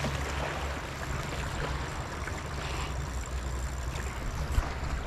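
Steady low rumble under an even wash of water and wind noise, with one sharp knock near the end.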